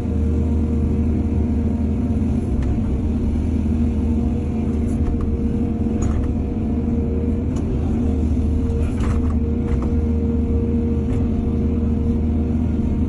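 Heavy diesel engine of an excavator running steadily, with a few short knocks of metal scattered through.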